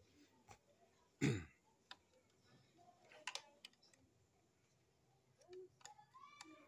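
Scattered small clicks and scrapes of a screwdriver turning a screw into the plastic housing of an Electrolux clothes iron. A brief louder sound, falling in pitch, comes about a second in.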